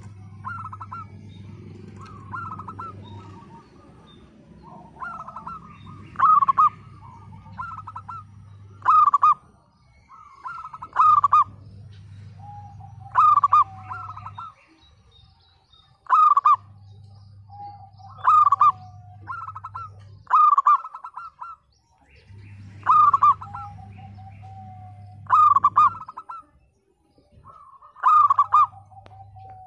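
Zebra dove (local perkutut) singing: repeated phrases of quick staccato coos, about one phrase every two seconds, many of them much louder than the rest. A low hum comes and goes underneath.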